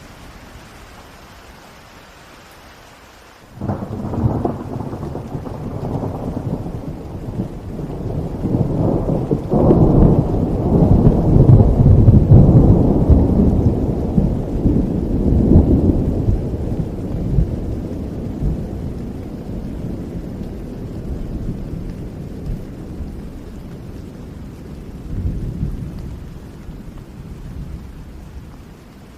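Steady rain with a long roll of thunder that breaks out suddenly a few seconds in. It builds to a deep rumble with a sharp crack partway through, is loudest about a third of the way along, then slowly rumbles away.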